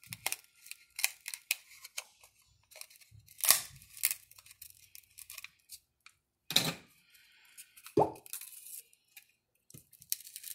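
Cracked glued display of a Redmi Note 8 being pried and peeled off its frame: irregular crackling and tearing of the adhesive, with clicks and scrapes. A few louder snaps come about a third of the way in, past the middle and near two thirds.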